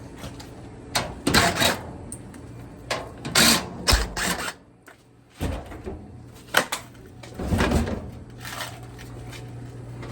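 Metal clatter of a dryer cabinet being handled during disassembly: several knocks and rattles spread through, over a steady low hum that drops out briefly about five seconds in.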